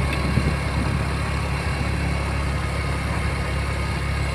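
Steady low rumble of a running vehicle engine, even in level throughout.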